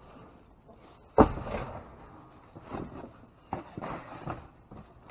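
Rummaging in a dumpster: a sharp bang about a second in, then several lighter knocks and rustles as things are shifted about.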